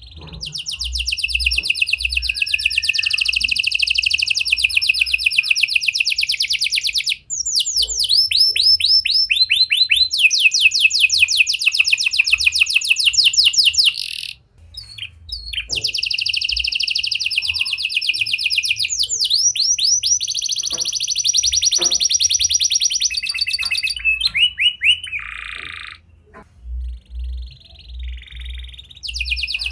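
Red-factor canary singing: long, rapid trills of fast repeated notes, with a few quick downward-sweeping notes between them and brief pauses.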